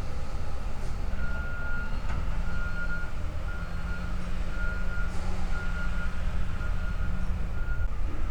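A steady low machine rumble with an electronic beeping alarm over it, about eight short high beeps at an even pace.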